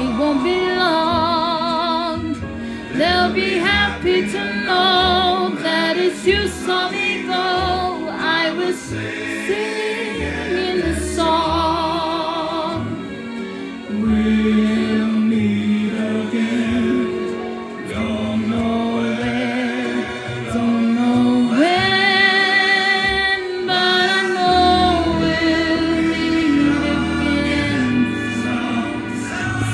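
Music: voices singing with vibrato over instrumental accompaniment with a bass line, a popular wartime song.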